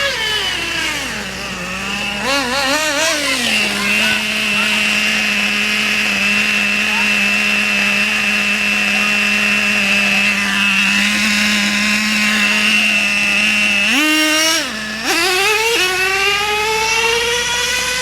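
A small motorbike engine running under throttle: its pitch falls over the first second or so, wavers up and down, then holds steady for about ten seconds. Near the end it rises, drops off briefly with a dip in loudness, and climbs again.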